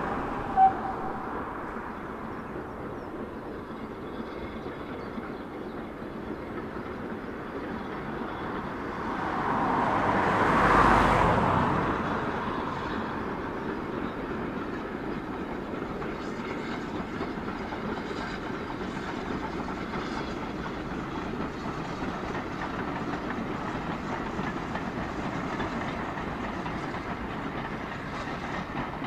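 BR Standard Class 9F steam locomotive 92214 hauling a passenger train past: its sound swells to a peak about ten seconds in, then the coaches keep rolling by steadily. A brief sharp high note sounds right at the start.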